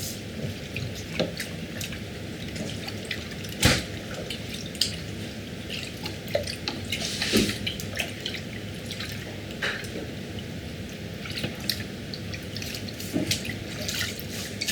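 Water dripping and splashing by hand in a tub or sink, with scattered small knocks and splashes; the loudest comes at about four seconds.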